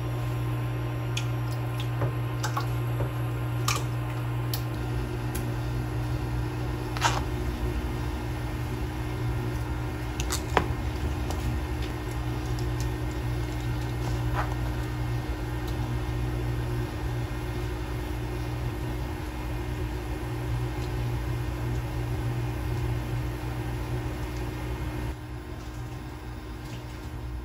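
Induction cooktop running with a steady low hum, under spatula scraping and squishing of thick tomato sauce and a few sharp clinks of utensils on the pot, the loudest about 7 and 10 seconds in.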